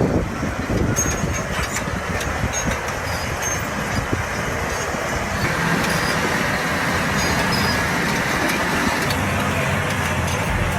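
Heavy earth-moving machine working, its diesel engine running steadily under a continuous mechanical rumble.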